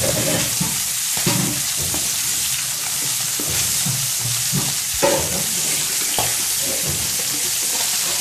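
Fish steaks frying in oil in a steel pan: a steady sizzle, with a spatula scraping and knocking against the pan at irregular intervals as the pieces are stirred and turned.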